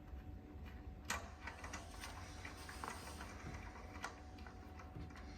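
Faint, irregular small clicks and taps of metal parts being handled as the cot's wheels are fitted and their nuts threaded on by hand.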